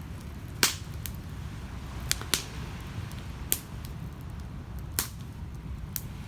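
Wood campfire crackling, with about seven sharp, irregular pops of burning wood, the loudest about half a second in, over a steady low rumble of waves on the shore.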